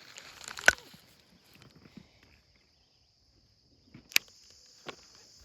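Rustling handling sounds with a few sharp clicks, one under a second in and two more near the end, over a steady high-pitched hum.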